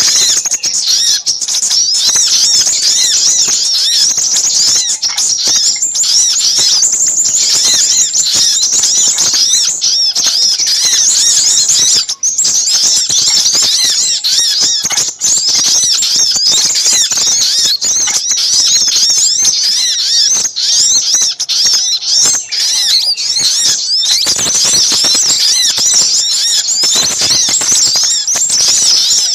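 Bird-lure recording of small birds calling together: a dense, unbroken chorus of rapid, high-pitched chirps and trills, mixing little spiderhunter (sogok ontong) and minivet (sepah raja) calls.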